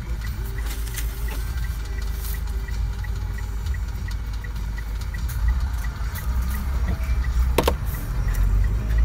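Car engine idling, a steady low rumble heard from inside the cabin, with a faint regular ticking about three or four times a second. A sharp click sounds once, about three-quarters of the way through.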